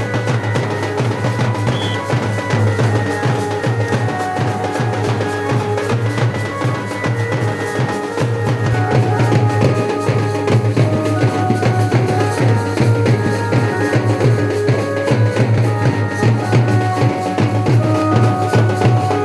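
Loud folk music: continuous rhythmic drumming with deep strokes under a melody of held notes.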